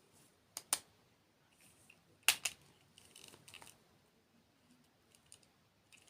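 Close-miked eating of desserts: a few sharp, crisp crunching clicks, two together a little after the start, the loudest pair a little past two seconds in, then a patter of smaller crackles and a few faint ticks.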